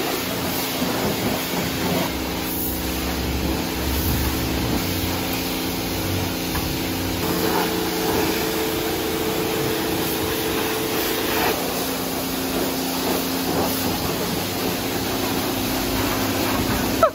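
High-pressure car-wash wand spraying water onto a car's body: a steady hiss of the jet, with a steady hum underneath.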